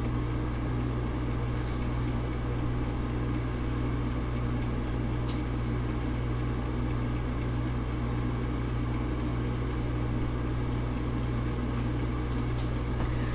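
Battered crappie fillets frying in hot bacon grease in a skillet: a steady sizzle over a low, even hum.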